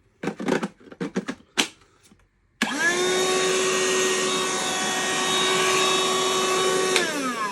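Hart battery-powered handheld vacuum switched on about two and a half seconds in. The motor spins up quickly to a steady whine with a hiss of rushing air, runs for about four seconds, then is switched off, its pitch falling as it spins down.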